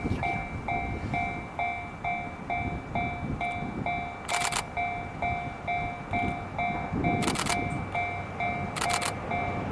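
Japanese railway level-crossing warning bell ringing in a steady repeating clang, about three strikes a second, over the low rumble of a passing train. A few short, higher-pitched bursts stand out, about four seconds in and near the end.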